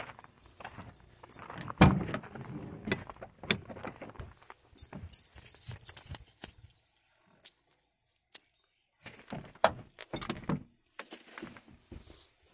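Keys jangling and a loud clunk about two seconds in as the camper van's side door is unlatched and opened, followed by scattered knocks and rattles of moving about inside the van.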